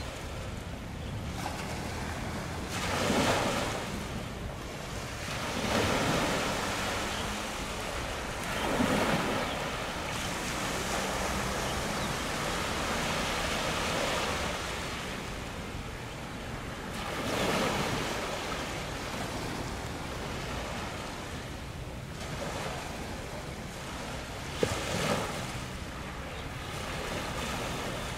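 Sea water washing and splashing, with wind on the microphone, rising and falling in surges a few seconds apart. A single short sharp knock comes near the end.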